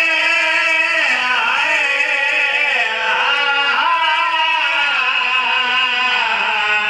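A man's voice chanting a mournful lament into a microphone, drawn out in long held notes with the pitch stepping up and down between them, without a break.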